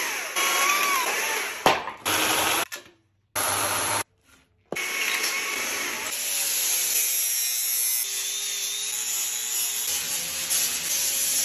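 Power carving of wood in short edited clips: a chainsaw cutting, broken by two sudden gaps of silence a few seconds in. From about halfway a corded grinder shapes the wood with a steadier whine.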